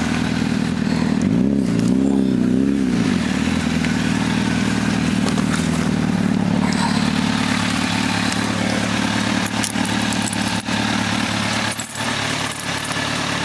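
Honda CBR1000 inline-four motorcycle engine running, revved briefly a few times early on, then settling into a steady idle. A couple of sharp clicks near the end.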